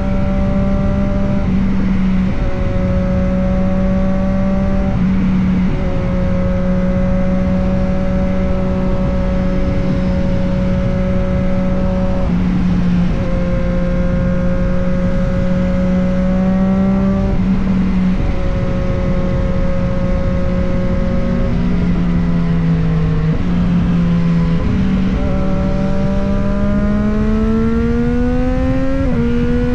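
Triumph Street Triple 765 RS's inline three-cylinder engine and exhaust running at steady riding revs, with a brief break in the note every few seconds. The revs climb near the end, over a steady rush of wind noise.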